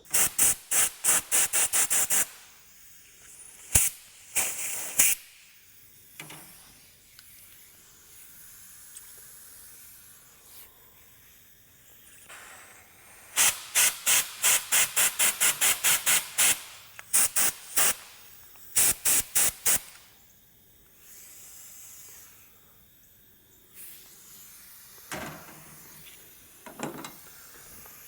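Compressed air blown through a Honda GX200 carburetor's passages to clear them, in strings of short hissing blasts about four a second, with pauses between the strings.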